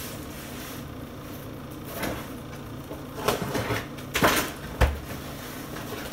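Cardboard shipping box being handled and opened: several short scrapes and rustles of cardboard as the box is turned on the counter and its flaps are pulled open. A sharp knock with a low thump comes about five seconds in.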